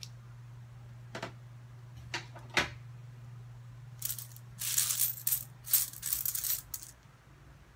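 Coins rattling and clinking: a few separate clinks, then about three seconds of dense rattling starting some four seconds in. A steady low hum runs underneath.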